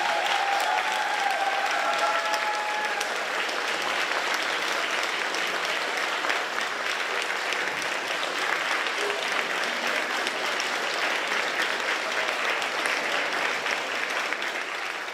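Large audience applauding steadily in a concert hall, dense clapping that carries on evenly and begins to fade right at the end.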